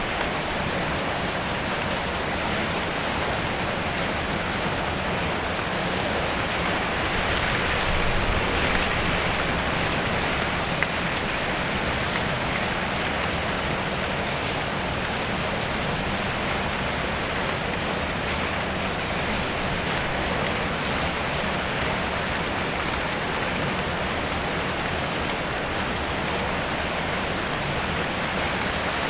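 Steady rain drumming on a car's metal body, heard from inside the car, a little heavier around eight to ten seconds in, with one sharp drip-like tick soon after.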